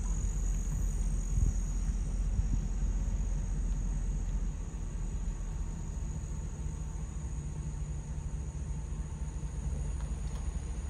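Low, steady rumble of a car rolling slowly, heard from inside the cabin, with a steady high chirring of insects outside.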